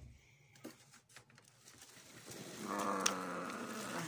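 A drawn-out low vocal groan, about a second and a half long and sinking slightly in pitch, coming about halfway through, after a few faint handling clicks.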